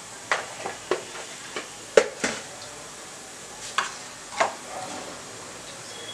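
Tempering spices (mustard seeds, cumin, fenugreek, urad dal and chana dal) frying in a little oil in a pan and stirred with a spoon: a faint steady sizzle under irregular sharp clicks and taps, the loudest about two seconds in.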